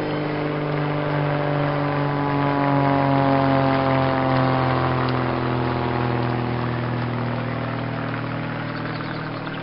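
A passing engine's steady drone, loudest about three seconds in, its pitch falling slowly as it moves away.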